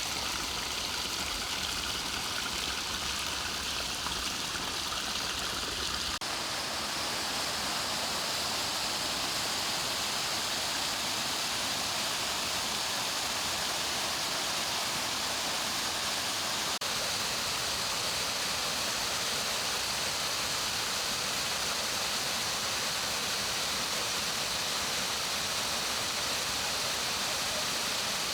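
Mountain valley stream rushing, a steady water noise. Its character changes abruptly about six seconds in and again near seventeen seconds, as one stretch of water gives way to another.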